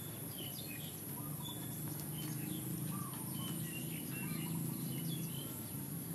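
Small birds chirping in short, repeated calls over a steady high-pitched insect drone and a low hum.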